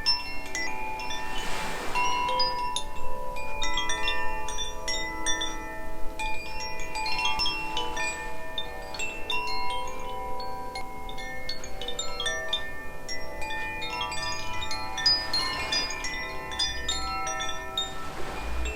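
Two Koshi chimes, the Aria and Ignis tunings, ringing together as they are swung: the clappers strike the metal rods inside the bamboo tubes in an irregular patter. The many clear tones overlap and keep sounding.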